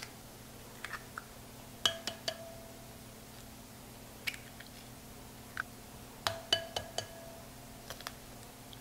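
Eggs being tapped and cracked against the rim of a ceramic mixing bowl. Sharp taps come in small clusters, about two seconds in and again around six to seven seconds in, and several leave the bowl ringing briefly.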